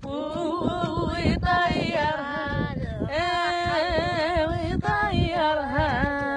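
Singing: a voice holds long, wavering, ornamented melodic lines without a break.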